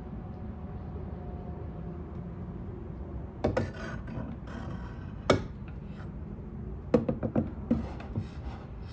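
Glass wine bottles slid into a wooden X-shaped wine rack: glass scraping along wood about three and a half seconds in, a single sharp knock around five seconds in, then a quick run of knocks and clicks near the end as another bottle is set in place.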